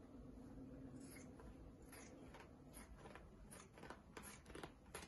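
Scissors snipping through fabric: a few faint separate snips, coming faster near the end.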